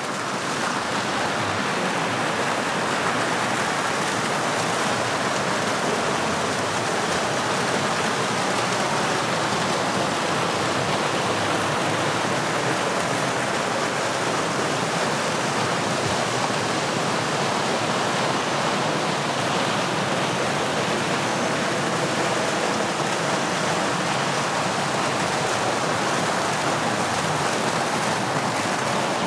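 Steady rush of running water, an even splashing noise with no rhythm or change.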